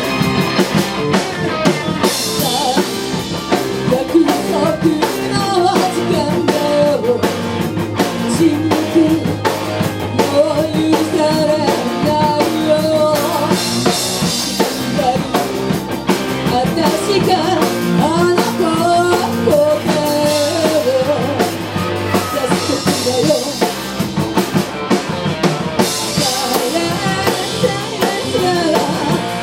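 A rock band playing live: drum kit and electric guitars, with a bending melodic lead line over them.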